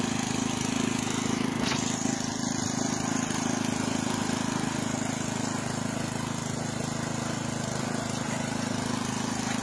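Engine of a Craftsman counter-rotating-tine garden tiller idling steadily.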